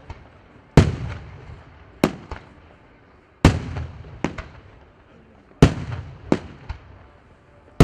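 Fireworks going off: four heavy bangs, about one every one and a half to two seconds, each followed by one or two smaller cracks and a rolling echo that dies away.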